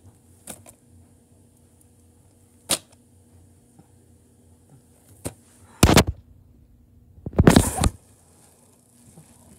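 Handling noise from a plastic DVD case and the phone filming it: a few sharp taps, then two louder scuffing bursts in the second half.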